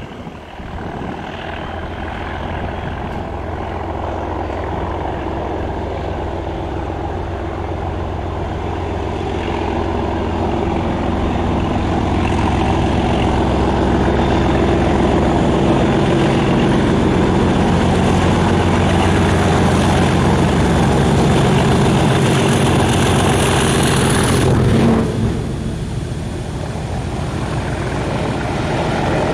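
Class 37 diesel locomotive's English Electric V12 engine running as the train approaches, growing steadily louder with a high whistle over the engine note. About 25 seconds in the engine sound cuts off abruptly as the locomotive passes beneath, and the coaches roll by.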